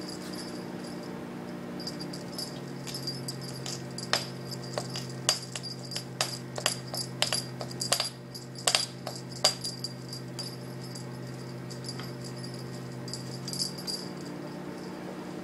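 A cat toy rattling and jingling in a run of sharp clicks while it is batted about, busiest in the middle, over a steady low hum.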